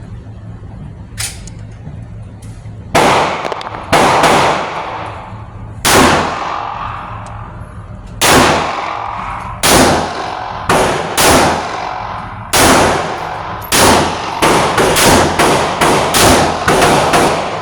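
Pistol shots from a 9mm Glock 43X, each crack followed by a long ringing echo. Single shots a second or two apart at first, quickening to about two a second near the end.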